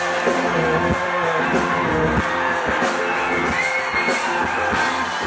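Live band music over a concert sound system, with sustained guitar notes and a steady pattern of drum hits.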